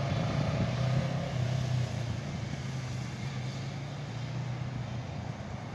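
Motorcycle engine running as the bike rides away, its sound fading over the first couple of seconds and then holding at a lower, steady level.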